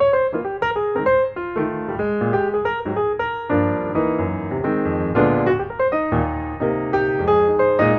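Background piano music: a flowing melody over chords, notes struck in quick succession.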